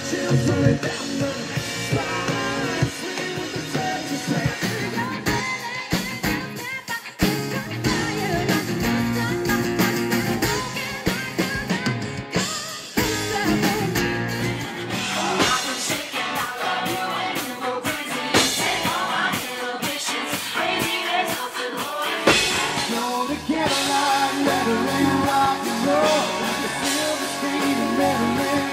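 Rock song with a lead singer over electric guitar and drums.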